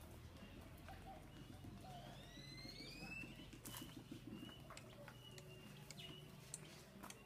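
Faint bird calls over a quiet outdoor background: a couple of rising whistles about two to three seconds in, then several short high chirps.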